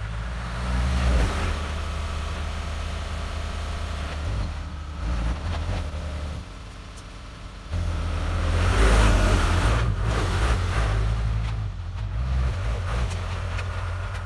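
Farm tractor's engine running steadily under load as it pulls a subsoiler through the soil, growing louder about halfway through as it comes close.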